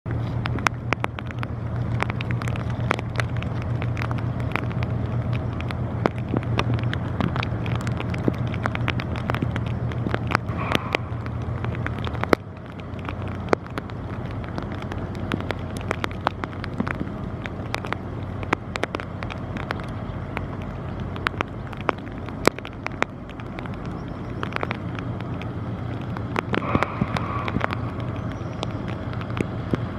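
Steady low drone of an inland vessel's diesel engine, with frequent sharp clicks and crackles from wind on the microphone. The drone drops suddenly about twelve seconds in.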